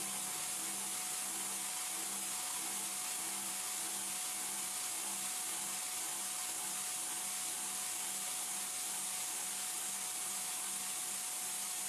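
CNC machining center milling a metal block with a high-performance end mill: a steady cutting hiss with a faint steady hum beneath.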